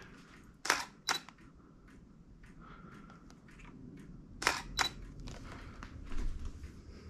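Canon DSLR shutter firing twice, each shot a pair of sharp clicks a fraction of a second apart, the second shot about four seconds after the first.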